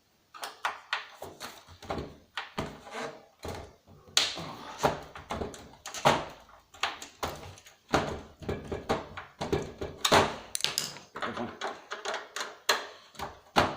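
Irregular clicks, knocks and scrapes of a screwdriver and hands working at stuck screws in the plastic case of a CRT TV/DVD combo, several in quick runs with a few louder knocks.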